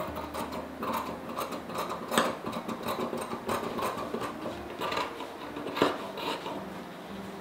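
Large dressmaker's shears cutting through cotton gingham fabric: a run of crisp snips with the scrape of the blades and the rustle of the cloth. Two snips, about two seconds in and near six seconds, are louder than the rest.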